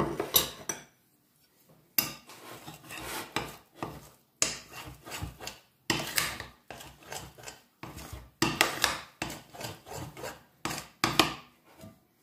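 Fingers kneading cocoa powder into a soft dough in a glass bowl: a run of irregular scraping and rubbing strokes against the glass.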